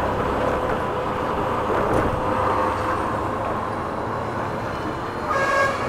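Honda Activa scooter's small engine running with road and wind noise as the scooter slows and comes to a stop. A brief pitched tone sounds near the end.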